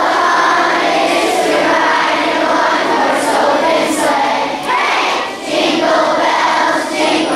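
A large crowd of children's voices shouting and cheering together, loud and overlapping.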